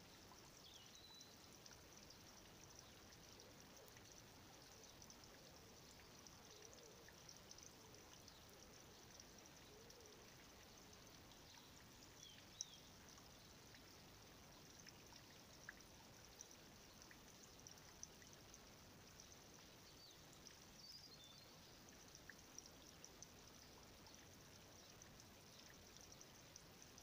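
Near silence: faint steady outdoor hiss, with a few faint, short high chirps and light ticks here and there.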